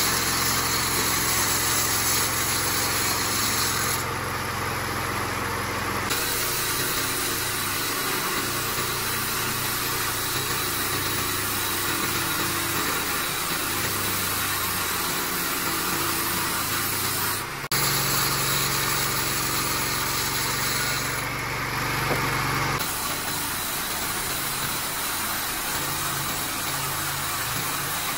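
Horizontal band sawmill running: a steady mechanical drone from its engine and blade. The sound shifts abruptly a few times, with a short break about two-thirds of the way through.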